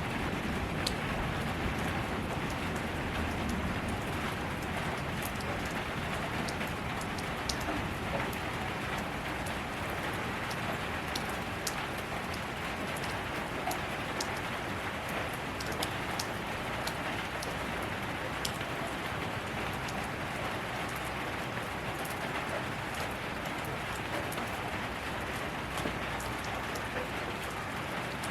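Steady rain falling on surfaces, a dense even patter with individual drops ticking sharply throughout.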